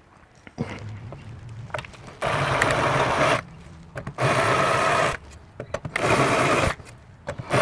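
Power drill with a countersink bit running in short bursts of about a second each, four times, deburring the lathe's bolt holes.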